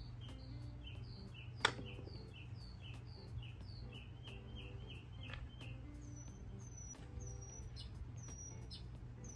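Songbirds chirping in the background, short high notes repeated about twice a second, then a thinner, higher whistled note repeated from about six seconds in. A steady low hum runs underneath, and one sharp click, the loudest sound, comes about a second and a half in.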